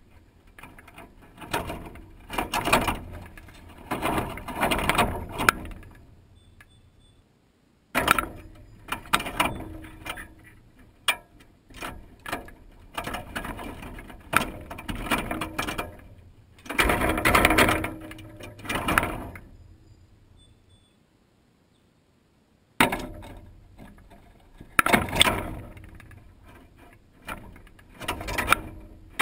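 Wire-mesh peanut feeder rattling and scraping as blue jays cling to it and pull peanuts out, with claws and shells clicking against the metal. It comes in bursts of a few seconds, with two short near-quiet gaps.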